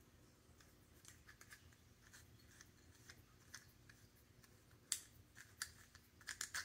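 Faint ticking and scraping of a metal T-bolt being screwed into a nut set in a PVC end cap, with a few sharper clicks about five seconds in and near the end as the cap is handled.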